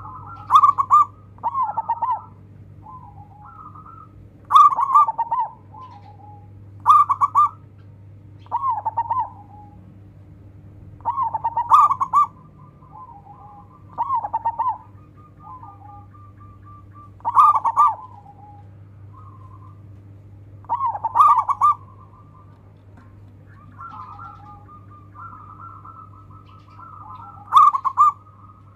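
Zebra dove (perkutut) cooing: loud, quick staccato cooing phrases repeated every few seconds, with softer trilled coos between them, over a steady low hum.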